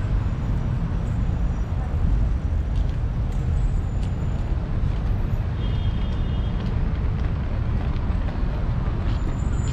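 City road traffic: a steady rumble of passing cars and buses.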